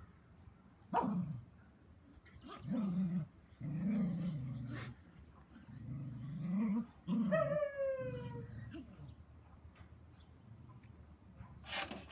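Cocker spaniel mother and puppies play-fighting: several low growls, a sharp yelp about a second in, and a high puppy yelp that slides down in pitch a little past halfway.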